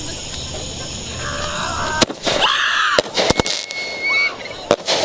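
Consumer fireworks going off: a string of sharp cracks and pops, starting about two seconds in, with a short whistle among them.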